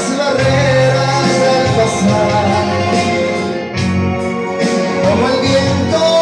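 Live music: a male singer sings into a microphone over instrumental accompaniment with sustained bass notes.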